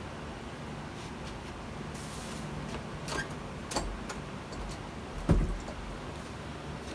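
Kitchen handling noises: a short hiss and a few sharp knocks and clatters over a steady low hum, the loudest knock about five seconds in, as chicken pieces and a basin are handled during washing.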